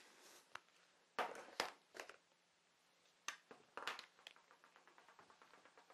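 Faint scrapes and taps, then a quick run of soft ticks near the end: small handling noises in a pause of speech.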